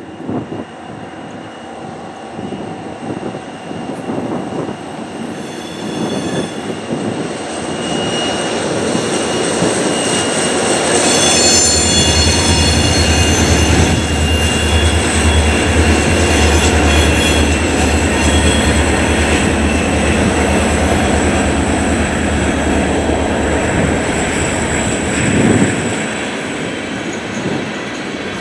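Freight train passing behind two CN SD40-2W diesel locomotives. Their EMD 645 two-stroke diesels build to a loud, deep rumble about eleven seconds in that holds for some fifteen seconds, with brief high-pitched squealing over it. Near the end the rumble drops away as covered hopper cars roll past.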